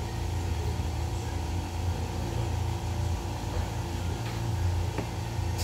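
Steady low machine hum, as from a running motor or fan, with a faint click near the end.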